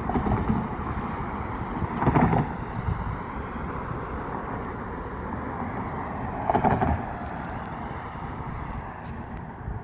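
Steady road-traffic rumble, with two brief louder swells about two seconds in and again near seven seconds.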